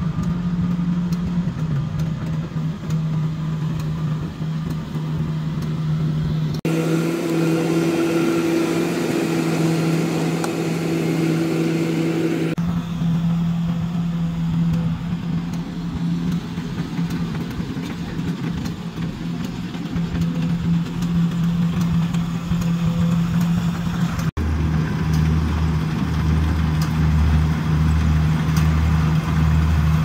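Engine of a rice combine harvester running steadily. The sound changes abruptly about seven, twelve and a half, and twenty-four seconds in.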